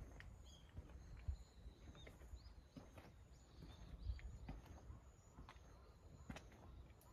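Faint footsteps of someone walking slowly along a paved lane, with small birds chirping now and then in the background.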